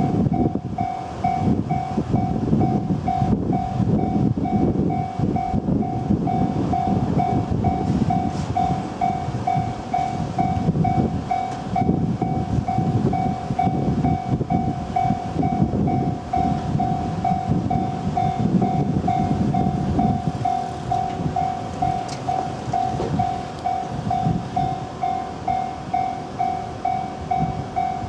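A Japanese level-crossing warning bell ringing steadily, about two dings a second, while a Chuo Main Line train rumbles across the crossing, its wheels clacking over the rails. The train noise fades about twenty seconds in, and the bell keeps ringing.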